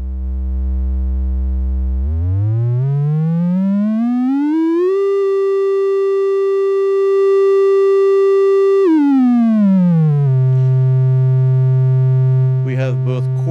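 Triangle wave from an After Later Audio bOSC, a CEM3340-based Eurorack oscillator. It starts as a steady low tone, glides up in pitch about two seconds in, holds a higher note, then slides back down to a middle pitch at around nine to ten seconds and holds there.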